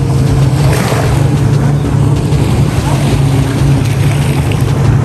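A boat engine running steadily as a constant low hum, under wind noise and the wash of water.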